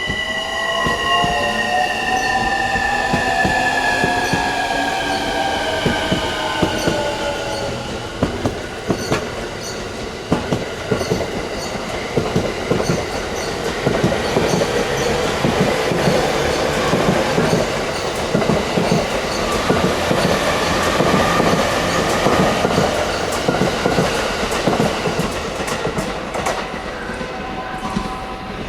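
Electric train running through a station: a motor whine falls steadily in pitch over the first several seconds, then wheels clatter over rail joints with a heavy rumble for the rest, easing near the end.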